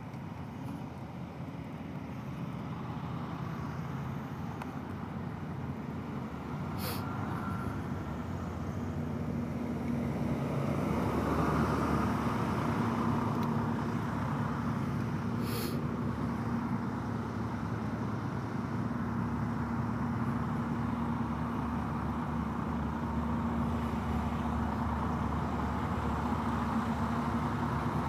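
Rolling noise of an electric scooter ride over rough asphalt: a steady rumble that grows louder about ten seconds in. A low steady hum joins about nine seconds in, and two sharp clicks come through, one about seven seconds in and one about fifteen.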